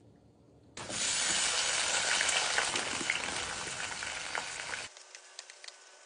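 French fries sizzling and crackling in hot oil in a small electric pot. The frying starts abruptly about a second in and cuts off sharply near the five-second mark.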